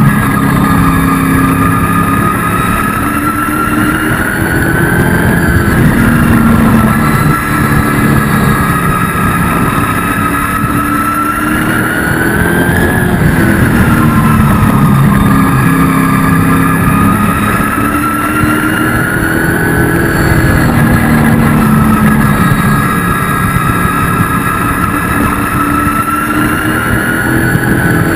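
An ASA speed truck's race engine, heard from inside the cab while lapping an oval. Its pitch climbs down each straight and drops as the driver lifts into the turns, a cycle that repeats about every six to seven seconds.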